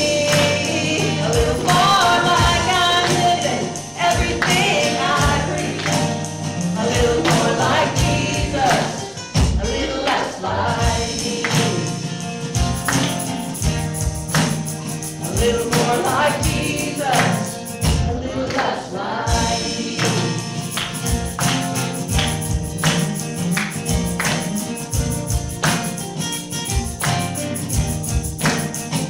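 Gospel worship music: voices singing over instruments with a steady percussion beat.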